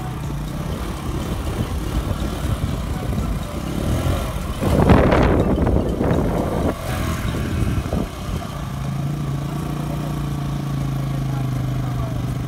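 Motorcycle engine running while the bike is stuck in deep mud. About four and a half seconds in it surges loudly for about two seconds, the sound of the rider revving to spin the rear wheel free. It then settles into a steady idle.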